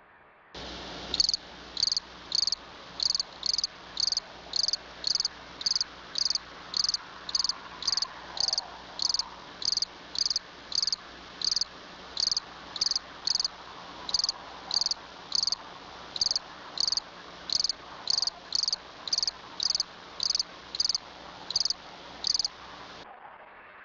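Insect-like high chirps repeating evenly, a little under two a second, over a faint steady hum; they start abruptly about half a second in and stop abruptly shortly before the end.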